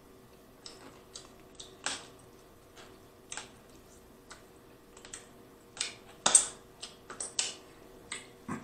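Snow crab being eaten close to the microphone: irregular sharp clicks and wet smacks of chewing and of crab meat being pulled from the shell, thickest and loudest about six to seven seconds in.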